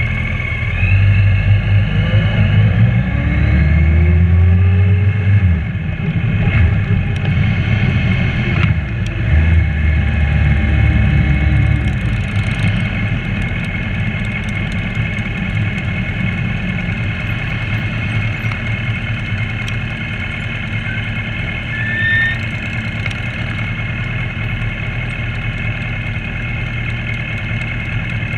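Motorcycle engines on a group ride, the camera bike's own engine loudest, running under way. For the first twelve seconds it is louder, with rising pitch as the bikes accelerate, then it settles to a steadier cruise.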